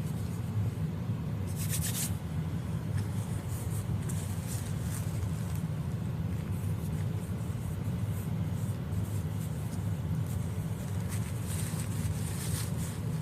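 Steady low hum, with soft brushing and shaking sounds a few times as baby powder is sprinkled and rubbed onto a silicone doll's skin.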